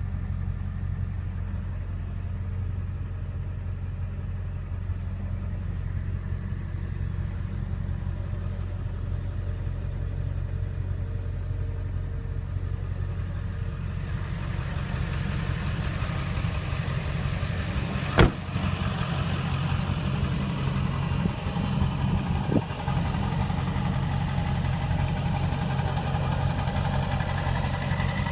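Ford 7.3 L Powerstroke V8 turbo diesel idling steadily. About halfway through the sound gets brighter and a little louder, with one sharp knock or thump and a smaller one a few seconds later.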